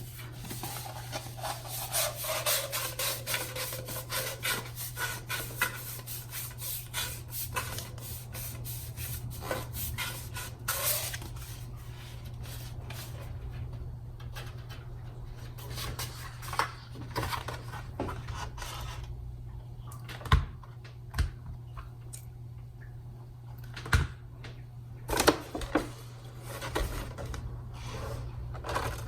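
Cardstock paper petals being handled and rubbed: quick, dense rustling and scraping for about the first ten seconds, then sparser rubs and a few sharp taps, over a low steady hum.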